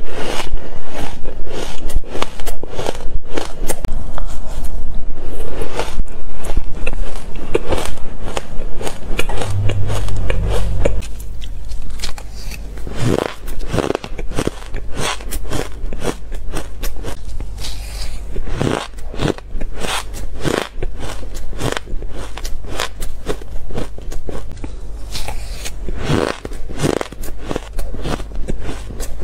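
Close-up crunching and chewing of frozen shaved ice, loud and dense for the first ten seconds or so. After that it turns quieter, with separate crunches and spoon scrapes over a steady low hum.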